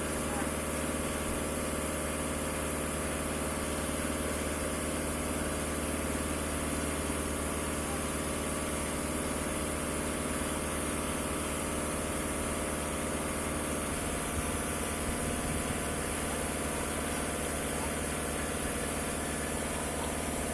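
Concrete mixer truck's diesel engine running steadily at idle.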